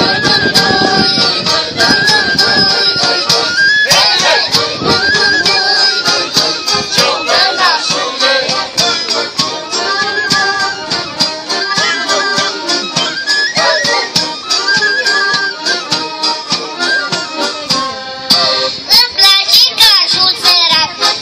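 Instrumental Moldovan folk dance music: a melody over a steady beat, an interlude between the ensemble's sung verses.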